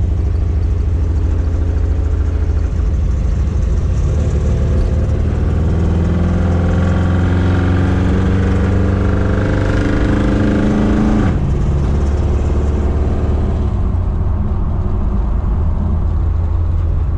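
V8 engine idling, then revved up slowly and steadily over several seconds before the throttle is released a little past halfway and it falls back to idle.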